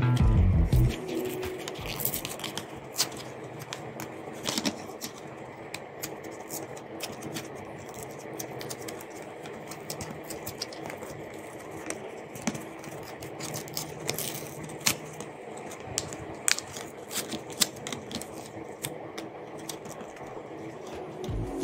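Plastic blister pack and cardboard backing card of a Faber-Castell water brush being handled and pried apart. Irregular clicks, crackles and scrapes of plastic and card.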